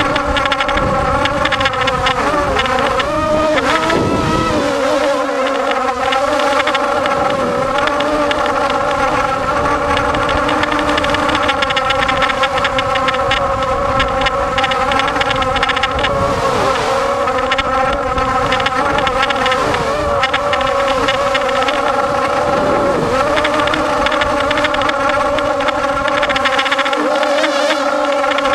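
Quadcopter's four EMAX 2300 kV brushless motors and propellers whining steadily in flight, heard from the camera on the craft. The pitch wavers and dips briefly a few seconds in and again about five seconds before the end as the throttle changes.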